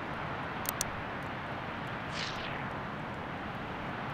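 A steady rushing noise with two sharp clicks just under a second in and a brief falling hiss about two seconds in, as a cooked king crab is lifted out of a steaming cast-iron Dutch oven.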